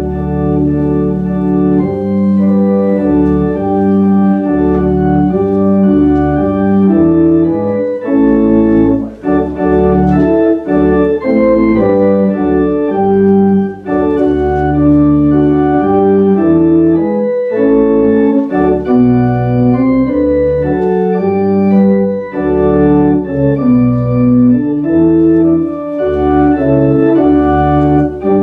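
Church organ playing a hymn in full, sustained chords that change every second or so, starting abruptly.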